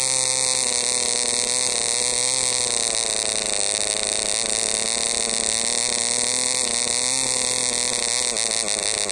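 Allbon Bambi 0.15 cc model diesel engine running flat out, turning a small nylon propeller: a loud, high buzzing whine whose pitch wavers slightly. Near the end it slows, the pitch falling as the engine runs down.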